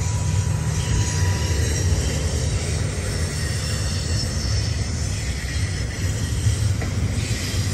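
Double-stack intermodal container cars of a freight train rolling past close by: a steady low rumble of steel wheels on the rails.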